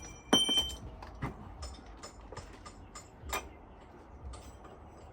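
Metal tools and parts clinking during truck wheel-hub work. One loud ringing clink comes about a third of a second in, followed by scattered light ticks and taps.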